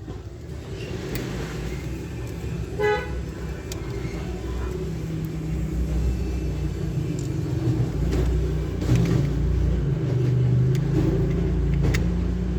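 A motor vehicle's engine running with a steady low rumble, and a short horn toot about three seconds in. A few light clicks sound later.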